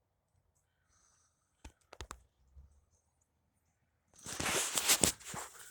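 A few faint clicks about two seconds in, then, from about four seconds in, a loud, irregular stretch of crunching and rustling.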